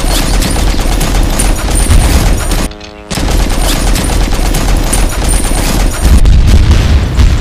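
Machine-gun fire sound effect: rapid automatic shots in a long burst, a short break about three seconds in, then a second long burst that grows louder and heavier in the last second or so.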